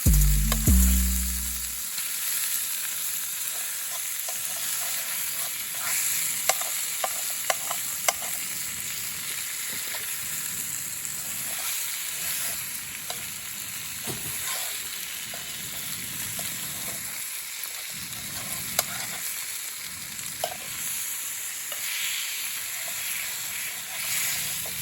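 Steak sizzling in an iron frying pan over a campfire: a steady frying hiss with scattered sharp clicks and pops.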